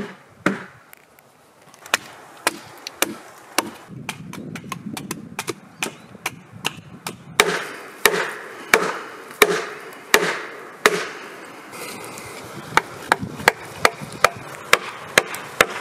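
Small axe chopping into a split half of a fresh ash log, each blow a sharp crack into the wood. Scattered blows at first, then steady strikes a little under a second apart from about halfway, turning to quicker, lighter strikes about three a second near the end.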